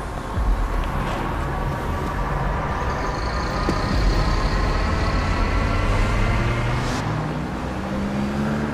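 Low, steady rumble of road traffic, with faint engine tones slowly rising in pitch.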